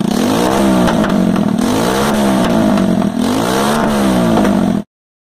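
Shineray motorcycle engine being revved over and over, its pitch rising and falling about four times, then cutting off suddenly near the end.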